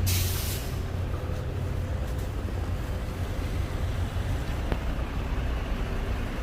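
Street traffic: a steady low engine rumble, with a short loud hiss of air at the very start.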